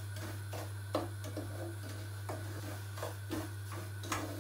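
Wooden spoon tapping and scraping against the pot as semolina is stirred, roasting in butter for semolina helva. The light knocks come at an uneven pace, roughly one every half second, over a steady low hum.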